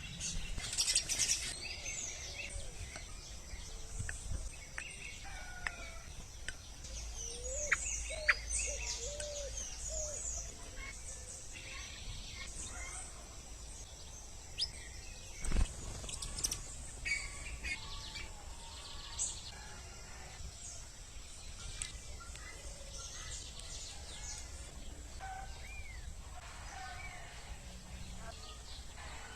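Several wild birds chirping and calling at a feeding box, with short chirps and whistles and a few lower warbled calls. A single sharp knock about halfway through.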